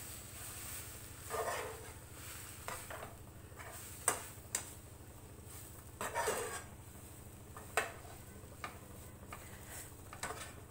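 Spatula scraping and knocking against a non-stick frying pan while a crumbly besan (gram flour) mixture is stirred, in irregular strokes with the sharpest knocks about 4 and 8 seconds in.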